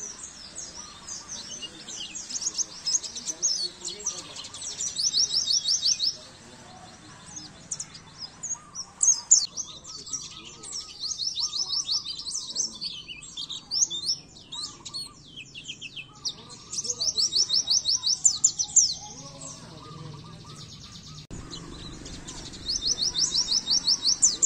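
White-eye (pleci) song: bouts of high, fast trills of rapidly repeated notes with varied chirps between them, a tutor recording for teaching caged birds to sing.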